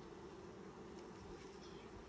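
A colony of honey bees buzzing steadily and faintly at an opened hive.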